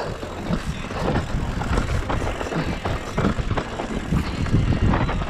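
Mountain bike running fast down a rough downhill trail: a steady wind rumble on the microphone, with the bike clattering over bumps and its tyres rolling on loose ground.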